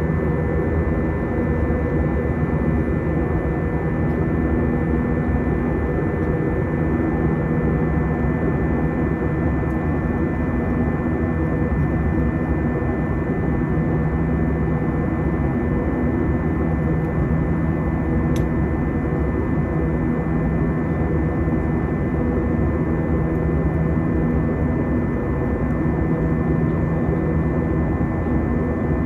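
A steady engine drone with several constant hums, unchanging in level, like engine noise heard from inside an aircraft.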